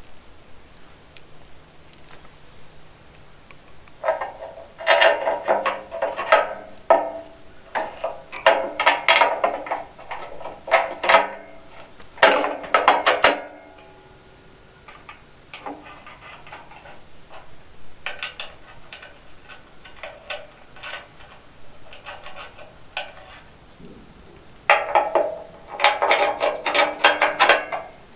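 Hand ratchet wrench clicking in several bursts of a second to a few seconds each, with pauses between, as bolts are run in or out.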